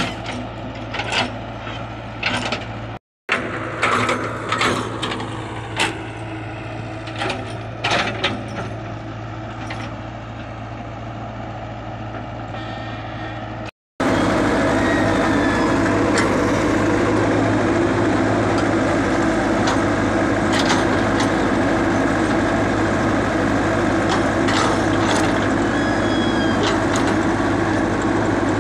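Komatsu crawler excavator's diesel engine running steadily, with repeated knocks and clanks as the bucket works the soil. About halfway through the sound becomes louder and steadier, heard close beside the machine.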